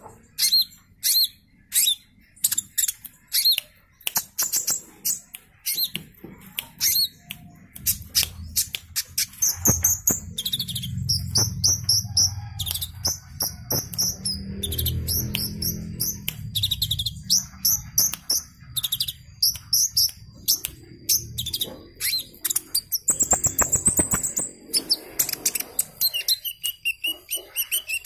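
Male purple-throated sunbird (kolibri ninja) singing in full voice: rapid runs of short, sharp, high chirps and twitters.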